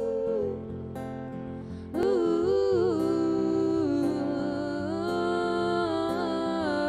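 Music: a wordless sung melody of long, sliding held notes over steady guitar chords, with a louder phrase coming in about two seconds in.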